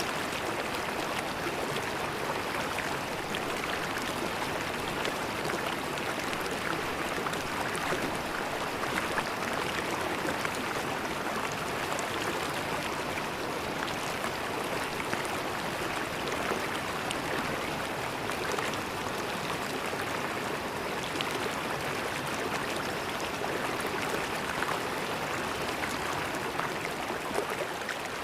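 River water flowing and gurgling over rocks, a steady rushing with many small splashes and no pauses.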